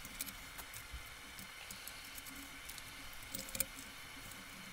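Faint small metal clicks and taps as bolts and washers are handled and fitted to a steel plate, with a short cluster of sharper clicks about three and a half seconds in, over a faint steady hum.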